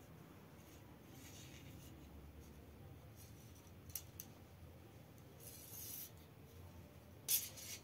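Faint handling sounds of a short fishing rod held in the hands: two light clicks about four seconds in, then brief rustles around six seconds and near the end, over quiet room tone.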